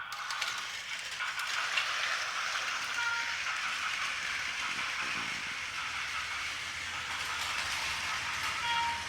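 Battery-powered toy trains, a Taiwan High Speed Rail model and a little Kamakura train, running on plastic track with a steady rattling whir. Short electronic tones from the trains' sound effects come about three seconds in and again near the end.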